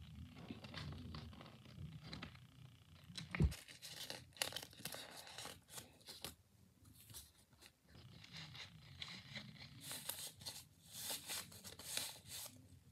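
Paper crinkling and tearing in irregular bunches as a homemade paper craft bag is handled, with one sharp knock about three and a half seconds in.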